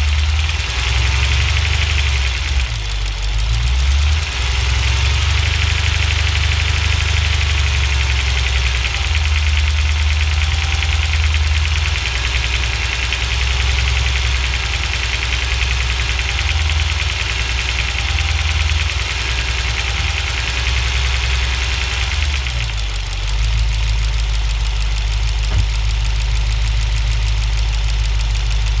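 Cold 6.1-litre Hemi V8 running a little above idle with a knocking or ticking noise. About three-quarters of the way through, the engine settles to a steady lower note and the knock fades. The owner hears the noise only with the engine cold and only around 1400 rpm, not at idle or at higher revs.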